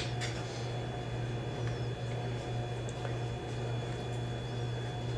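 A steady low hum under faint room noise, with one light click right at the start.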